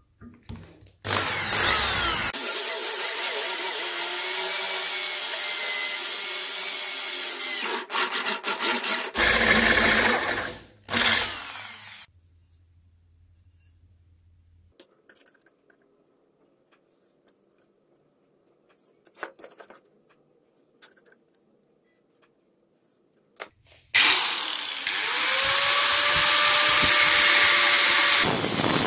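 An electric drill bores into a steel strip clamped in a bench vise, running steadily for several seconds and then in short stop-start bursts. After a quiet stretch with light knocks and handling, an angle grinder starts up and cuts into the steel, running steadily.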